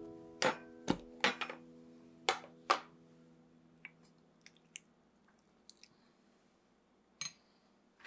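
Snap-lock food container lid being unclipped: a quick series of sharp plastic clicks, followed by faint ticks of a spoon scooping thick doenjang (soybean paste) out of the glass container. A held music chord fades out under the first clicks.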